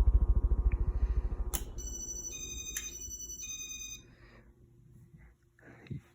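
Casablanca Saturn ceiling fan stirring air past the microphone as a fast low flutter that fades away over the first two seconds as the fan slows. About two seconds in comes a short electronic melody of stepped beeps, like a phone ringtone.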